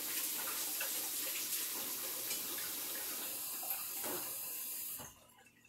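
Sink tap running full while hands are washed under it; the water is turned off abruptly about five seconds in.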